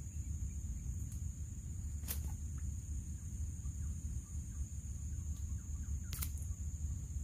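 Steady high-pitched drone of insects over a low wind rumble on the microphone, with two sharp clicks about four seconds apart.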